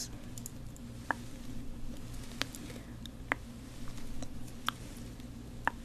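Plastic tweezers clicking close to the microphone, about five separate clicks roughly a second apart, over a faint steady low hum.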